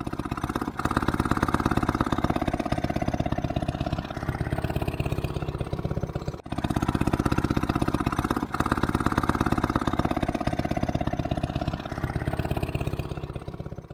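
Vintage outboard motor running, a fast, even exhaust rhythm whose loudness swells and eases as the throttle changes, with a brief break about six seconds in.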